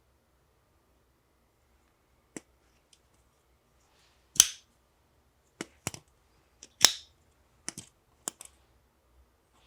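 Civivi Elementum Utility folding knife being handled: a scatter of sharp clicks and snaps, two of them markedly louder, from the blade and lock being worked.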